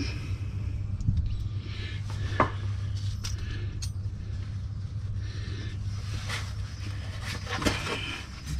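Hand work on the air dryer's mounting bolts: scattered light metallic clicks and knocks with some scraping and rustling, over a steady low hum.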